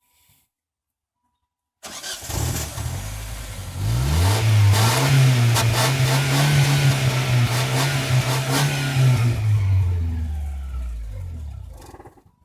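Exhaust of a Mazda 626's 2.0 four-cylinder engine, stock with no turbo whistle fitted. It comes in suddenly about two seconds in, rises in pitch as it is revved around four seconds in, holds for several seconds, then falls back and stops just before the end.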